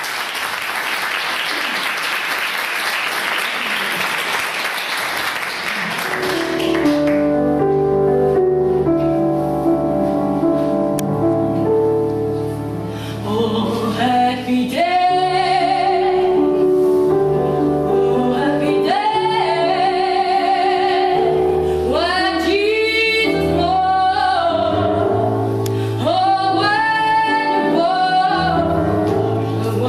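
Audience applause for the first six seconds or so. Then a keyboard introduction of held chords, and from about fourteen seconds a vocal quartet of women's and men's voices singing in harmony, lyric style, over the keyboard.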